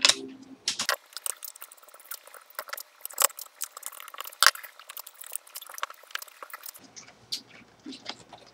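Rapid small clicks and scrapes from hand work on a speed controller's wiring: a screwdriver tightening terminal screws and parts being handled, densest through the middle.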